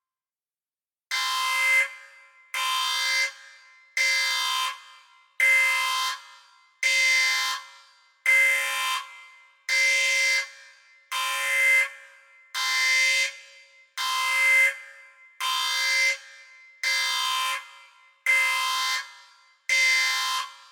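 Sci-fi spaceship alarm sound effect: a harsh, buzzy electronic tone blaring in short repeated blasts, about one every second and a half, starting about a second in. Each blast swells and then cuts off with a brief echoing tail.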